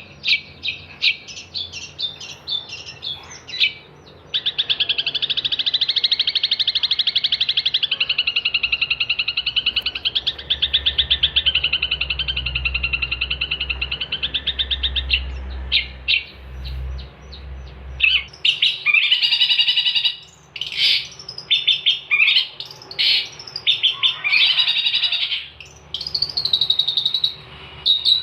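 Long-tailed shrike (cendet) singing in full voice. It opens with a run of short sharp notes, moves into a long, very fast trill of about eleven seconds that wavers slightly in pitch, then breaks into varied, rapid chattering phrases.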